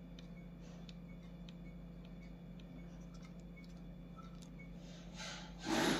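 Plastic handling noise from an action camera being worked in its stiff plastic case: a loud scrape and rustle starting about five seconds in, over a steady low hum and faint scattered ticks.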